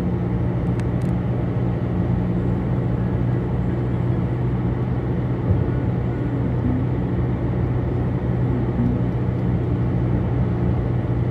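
Steady road and engine noise of a moving car heard from inside its cabin, with a low, even hum. There is one brief knock about halfway through.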